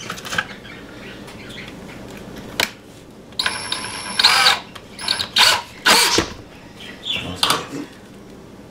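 Electric hand drill run in several short bursts of a second or less, its motor whining briefly each time, with clicks of handling between them.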